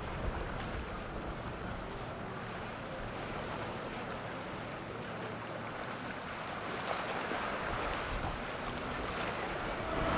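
Boat running on the water: a steady rush of engine and water noise, with wind on the microphone; it eases a little midway and builds again toward the end.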